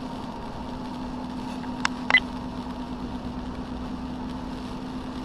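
Steady road noise of a car driving on a rain-soaked highway, heard from inside the car: tyre hiss over a steady low hum. Two sharp clicks come close together about two seconds in.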